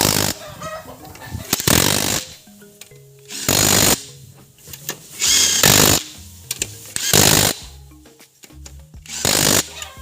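Impact wrench firing in short bursts of about half a second, roughly every two seconds, six times, over background music.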